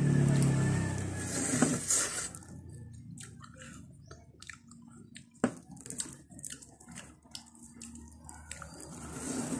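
Close-up mouth sounds of eating a frozen orange ice candy: wet sucking, lip smacks and chewing, heard as many short sharp clicks. A low hum is louder for the first two seconds.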